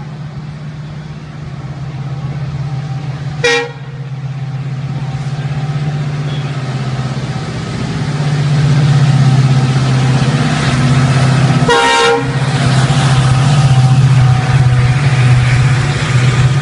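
WDP-4D diesel-electric locomotive's EMD two-stroke V16 engine running under power, a steady low drone that grows louder as the train accelerates toward and past the listener. The locomotive horn sounds two short blasts, about three and a half seconds in and about twelve seconds in, the second a little longer, and near the end the coaches' wheels add a rolling rush.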